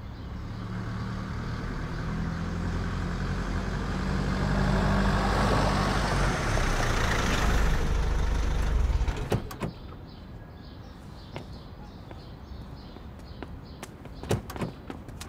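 Mercedes-Benz G-Class SUV driving up, its engine and tyre noise growing louder, then cutting off sharply about nine seconds in. A few short car-door clicks follow, the last near the end.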